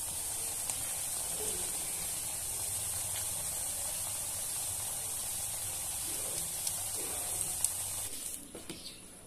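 Sajo luncheon meat slices frying in shallow oil in a pan: a steady sizzle that stops about eight seconds in.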